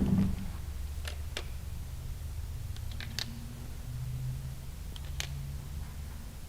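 A handful of short, sharp clicks, about five, scattered over a low steady hum. A louder sound is fading out right at the start.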